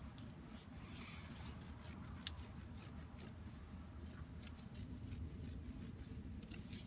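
Motorcycle drive chain being scrubbed to clean off old hardened oil: a run of short, irregular rubbing and scraping strokes.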